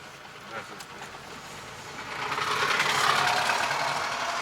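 Road traffic heard from inside a moving car: a rushing noise swells about halfway through and slowly fades, like a vehicle passing close by.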